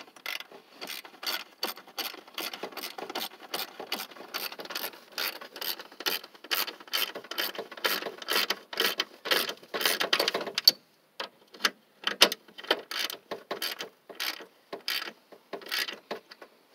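Ratchet wrench clicking in quick, repeated back-and-forth strokes as a 10 mm socket drives in the cooling-fan mounting screws. It pauses briefly about eleven seconds in, then clicks in fewer, more spaced-out strokes.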